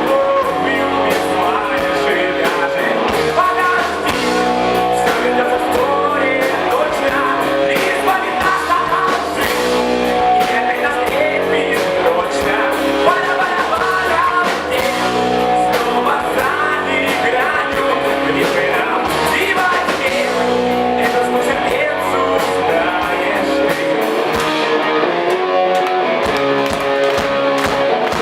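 Live rock band playing loud and steadily, with guitars, drums and a singer.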